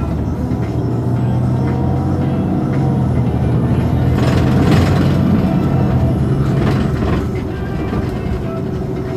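Iveco Crossway bus's diesel engine idling steadily while standing, with a short hiss about halfway through and a weaker one near the end.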